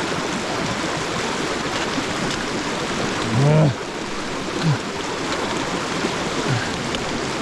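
Glacial meltwater river rushing, a steady, loud noise throughout. A man gives a short grunt of effort about three and a half seconds in, with two fainter ones later.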